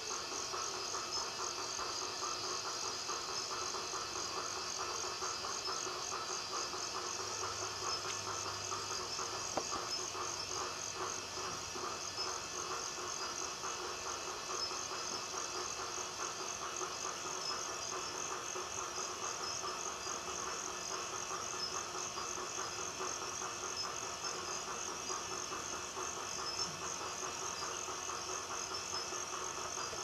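Dusk chorus of insects and frogs: a dense, steady mix of high, rapidly pulsing trills with lower trilling calls beneath.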